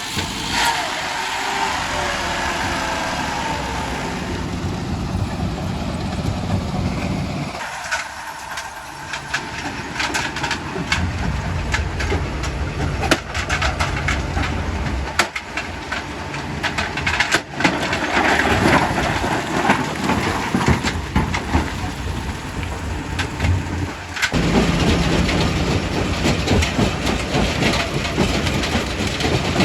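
Quarry primary rock crusher working: a steady low machine drone under irregular knocks and cracks of stone being broken. The low drone drops away for a couple of seconds about eight seconds in.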